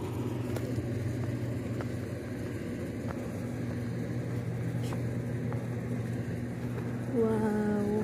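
A steady low engine hum with a few faint ticks. Near the end a person's voice calls out one drawn-out note, falling slightly in pitch.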